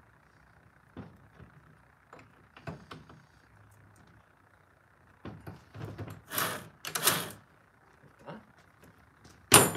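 Chainsaw bar nuts being tightened with a hand wrench: scattered metal clicks in the first few seconds, a run of louder scraping and clattering about five to seven seconds in, and one sharp clack near the end.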